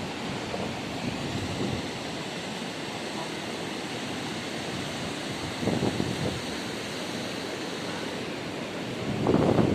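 Steady rush of wind and sea water, with louder surges about six seconds in and near the end.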